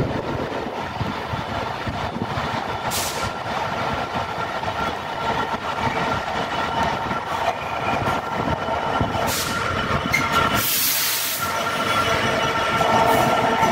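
Class 66 diesel-electric locomotive, its EMD two-stroke V12 engine running, drawing a freight train of open box wagons in and past, with steady wheel squeal. A burst of hiss comes about ten seconds in.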